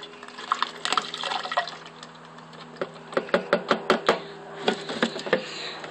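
Diesel exhaust fluid (DEF) being poured from a plastic bottle through a funnel, glugging as the bottle takes in air, with a quick run of glugs about three seconds in.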